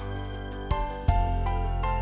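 Soft instrumental background music with evenly repeating notes over a held low bass; about a second in a deeper bass comes in and it gets a little louder.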